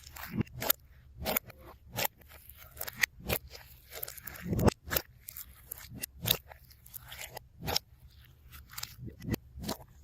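Slime being squeezed and pressed by hand, giving a run of sharp, irregular clicking pops, two or three a second.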